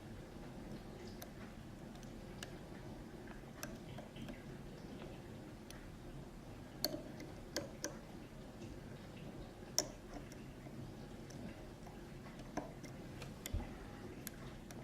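Small, irregular metallic clicks and ticks of a dimple pick working the pins of an Ezcurra 6-pin dimple euro cylinder under light tension, with a few sharper clicks about halfway through.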